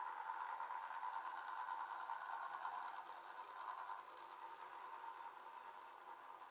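Small electric motor of an H0 model locomotive running with a steady whirr, starting suddenly and slowly growing fainter.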